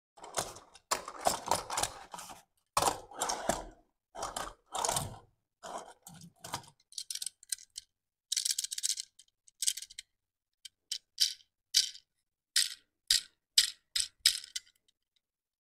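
Handling noise from fingers on a small die-cast toy police car: rustling and scraping at first, then a run of short, sharp, light clicks over the second half.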